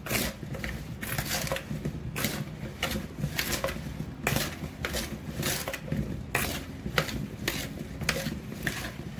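A spoon tossing oil-coated cauliflower florets in a plastic mixing bowl: repeated scraping and clattering strokes, about two a second.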